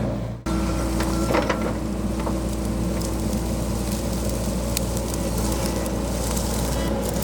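John Deere 60G excavator's diesel engine running steadily while digging, with a few short knocks. The sound cuts in about half a second in.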